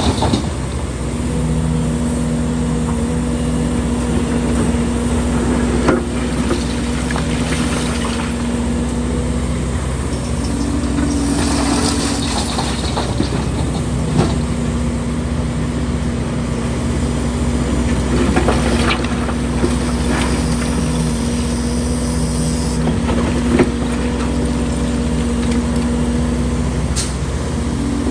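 Diesel engine of heavy earthmoving machinery running steadily at a constant pitch, with scattered sharp knocks and clatter.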